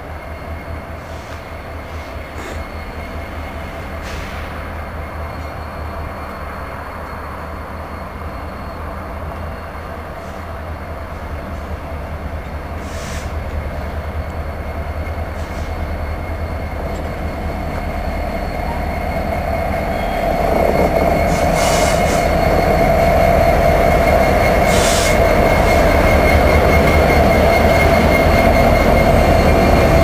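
Freight train led by two diesel-electric locomotives, an EMD SD70M-2 and an EMD SD75I, approaching slowly and drawing alongside, the engine rumble growing louder and stepping up about twenty seconds in as the locomotives come abreast. A steady high wheel squeal from the curving track runs over it, with a few metallic clanks.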